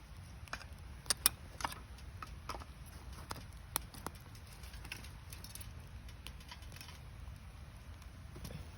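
Wood campfire of damp gathered firewood crackling, with sharp pops and snaps clustered in the first four seconds and scattered after, over a low steady rumble.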